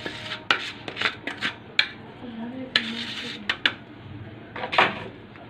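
Plastic sieve shaken and tapped against a baking dish while sifting cocoa powder: a run of irregular light knocks and rattles, the loudest near the end.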